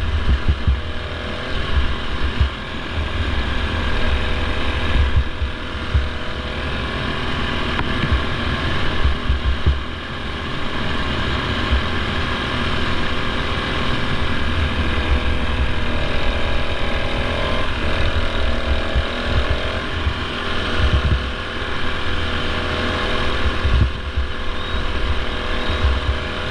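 Racing ride-on lawn mower's engine running steadily under load at speed, heard from on board, with a heavy low rumble underneath. Its note shifts briefly about two-thirds of the way through.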